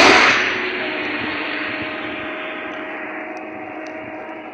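A truck driving past on the road, loudest as it goes by at the start, then its engine and tyre noise fading steadily as it moves away.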